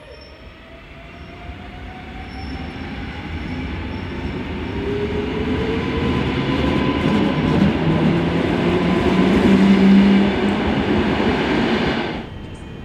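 EN57AL electric multiple unit pulling away and accelerating: its traction motors whine in several tones that rise steadily in pitch, over a growing rumble of wheels on rail, getting louder as it comes closer. The sound cuts off abruptly near the end.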